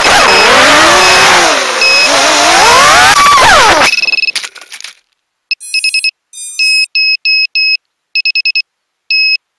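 Small FPV quadcopter's motors and propellers whining loudly, the pitch rising and falling with throttle, with a few short beeps, then cutting out abruptly about four seconds in as the drone comes down. After that, electronic beeping in short groups repeats through the rest.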